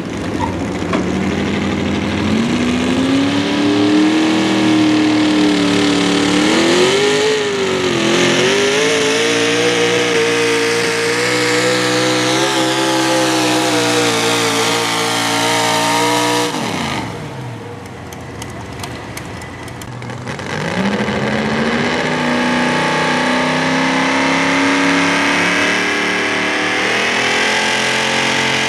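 Pro Modified four-wheel-drive pulling truck engines running at high revs. One engine climbs in pitch, blips up and down, then holds a steady high pitch for about eight seconds before falling away. After a few seconds' lull a second truck's engine climbs and holds steady.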